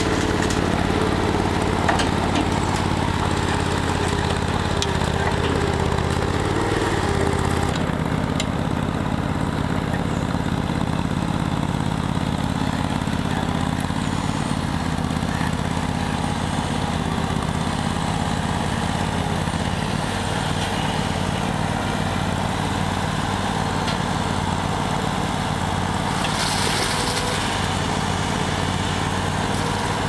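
Engines running steadily: the Dingo K9-3 mini skid steer loader beside the hydraulic concrete mixer, which is driven off a Ford 550 backhoe while concrete pours into the loader's bucket. About eight seconds in the sound changes, and the mini skid steer's engine runs on as it carries and tips the bucket of concrete.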